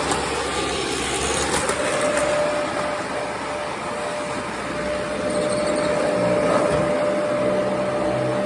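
Vacuum cleaner running steadily: a continuous motor whoosh with a constant whine.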